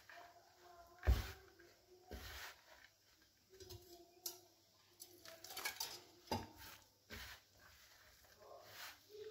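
Hands rubbing and gathering crumbly flour-and-butter pastry dough in a glass bowl: soft, irregular rubbing and patting, with a thump about a second in.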